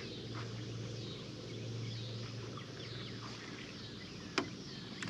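Outdoor ambience of birds chirping in short, repeated high notes over a low steady hum, with one sharp click near the end.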